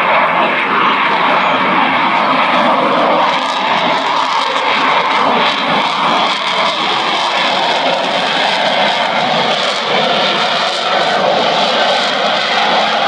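Lockheed Martin F-35B Lightning II's single Pratt & Whitney F135 turbofan running loud and steady, a continuous jet-engine rush with no break.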